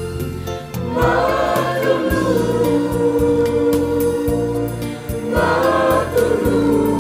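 Mixed choir of women's and men's voices singing a Javanese hymn, the words 'Matur nuwun, matur nuwun', over instrumental accompaniment. The voices swell into new phrases about a second in and again after about five seconds.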